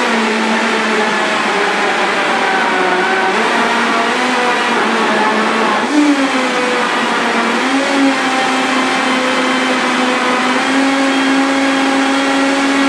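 Countertop blender motor running steadily at high speed, puréeing a thick mix of bananas, figs and carob. Its pitch wavers briefly about six and eight seconds in as the load shifts, then holds.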